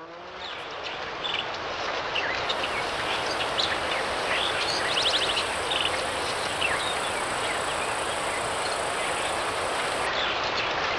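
Outdoor woodland ambience: a steady rushing background noise with birds chirping and giving short fast trills over it.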